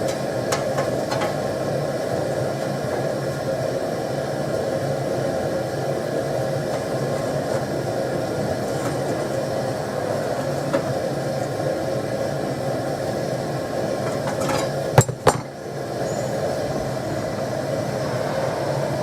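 Propane gas forge burner running with a steady roar. About 15 seconds in, a single sharp metallic knock, like steel or tongs struck against the forge.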